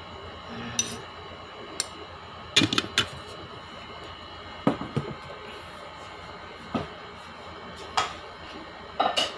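Kitchenware being handled: scattered sharp clicks and knocks, with a quick cluster of them about two and a half seconds in and another just before the end.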